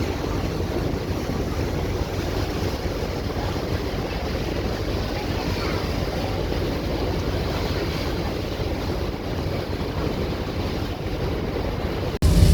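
Wind buffeting the microphone over the steady low rumble of a passenger ferry and the water it moves through. Near the end the sound cuts off abruptly and jumps to a louder, deeper rumble.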